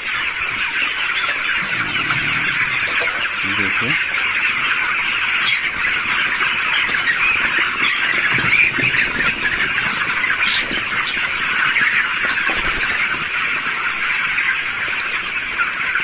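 A large flock of young broiler chickens, about 24 days old, peeping and cheeping all at once: a steady chorus of many overlapping high calls.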